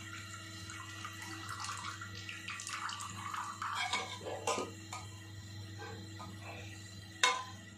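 Melted ghee being poured from a metal pot into a ceramic bowl, a faint trickling, with a few light clinks of the pot against the bowl, the sharpest near the end.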